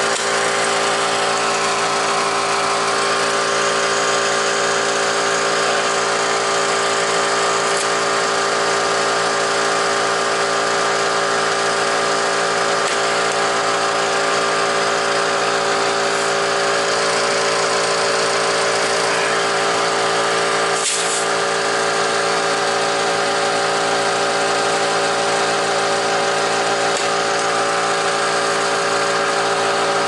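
Air compressor running steadily, a constant motor hum and hiss that does not let up, with one sharp click about two-thirds of the way through.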